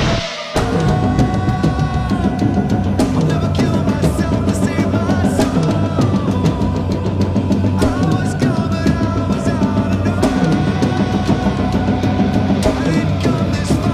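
Heavy metal song with an acoustic drum kit played along: rapid kick-drum strokes, snare hits and crashing cymbals over the recorded band. The full band comes in about half a second in, after a cymbal crash.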